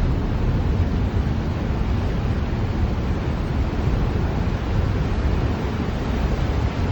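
Steady low rumble and rushing noise of a Sakurajima Ferry under way, its engine drone mixed with water wash, with wind buffeting the microphone.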